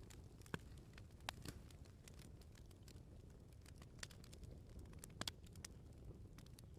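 Wood fire burning quietly, with scattered sharp crackles and pops over a low rumble of the flames.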